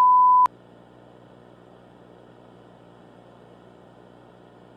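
A steady electronic test tone near 1 kHz cuts off with a click about half a second in, leaving faint hiss and hum of dead air: a simulated broadcast fault.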